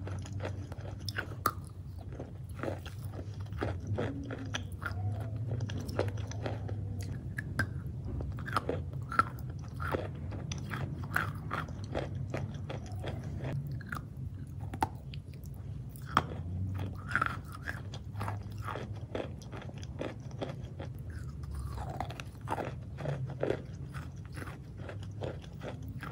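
Close-up biting and crunchy chewing of a chunk of edible chalk: many sharp crunches in quick succession over a steady low hum, the recording sped up.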